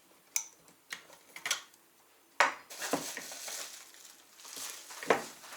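Stainless steel electric grain grinder being handled, its metal parts giving a series of sharp clicks and knocks, with rustling between them.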